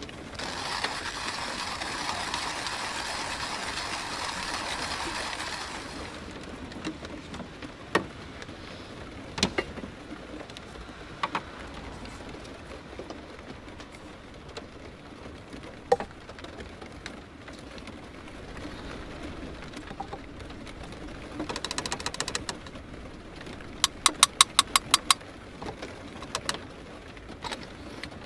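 A car passes on a wet street outside the van, its tyre hiss swelling and fading over the first few seconds. After that come scattered light clicks and clinks of coffee-making gear at the counter, with a quick run of ticks near the end as coffee beans are spooned in.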